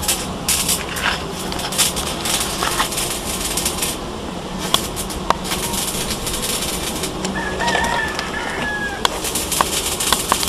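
A rooster crowing once, a single long call about three-quarters of the way through, over irregular crackling and clicking noise.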